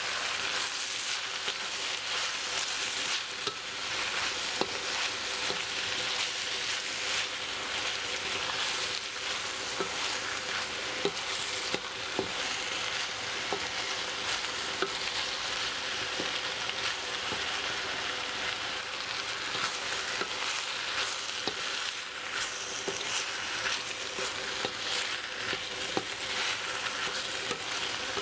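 Napa cabbage, meatballs and bean sprouts sizzling as they stir-fry in a metal wok, tossed by a spatula, with scattered clicks and scrapes of the spatula against the pan.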